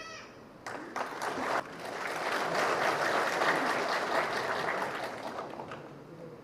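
Audience applause: a few scattered claps about a second in, building into steady clapping from the whole audience that swells and then fades away near the end.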